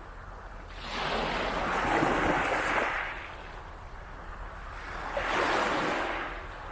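Waves washing up onto the beach: two washes, each swelling and then fading away, about four seconds apart.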